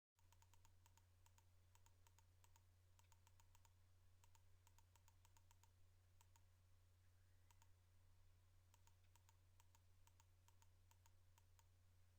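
Near silence: a faint steady low hum with faint, irregularly spaced clicks.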